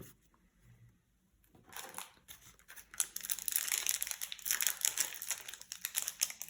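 Booster pack wrapper crinkling and tearing as it is opened, starting faintly about two seconds in and turning into a dense, continuous crackle from about three seconds in.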